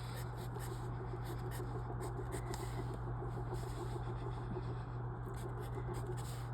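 Faint scratching of a pen writing on paper, over a steady low electrical hum.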